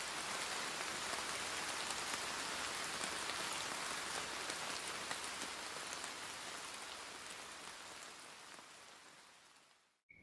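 Steady rain falling on a surface, a dense hiss of many small drops, fading out over the last few seconds.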